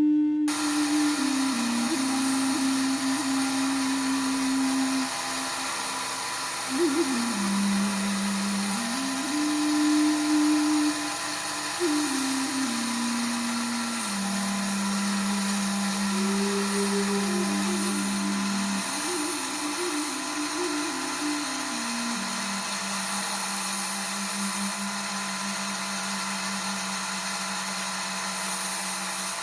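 A power tool's motor starts about half a second in and runs steadily with a hissing whine. Under it, background music plays a slow, low melody of held notes.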